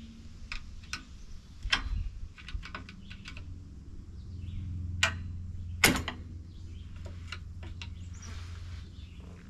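Scattered metal clicks and clinks as hand tools work the drum-brake shoes and return springs on a truck axle during brake removal, the sharpest knock about six seconds in, over a low steady hum.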